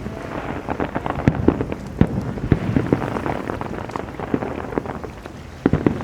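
Fireworks display: an irregular run of sharp bangs and pops, several a second, over a steady crackling hiss, with a cluster of louder pops near the end.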